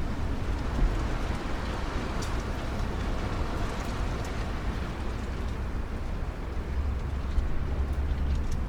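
Strong wind blowing hard, with a heavy low rumble of wind on the microphone and faint, scattered tinkling of wind chimes.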